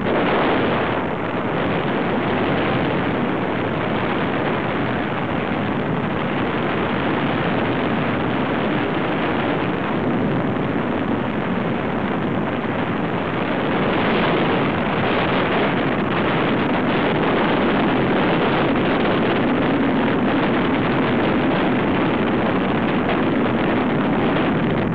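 Steady rush of wind over a hand-held action camera's microphone on a tandem paraglider in flight, swelling slightly about halfway through.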